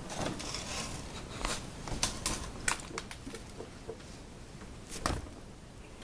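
Scattered light clicks and knocks over soft rustling, the clearest about two seconds in and about five seconds in: movement and handling noise of the camera.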